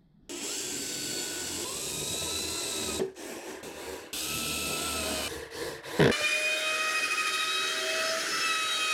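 Power drill driving screws into a pine shelf in two runs, the first rising in pitch as it speeds up. About six seconds in, an Einhell router is switched on and runs steadily with an even whine.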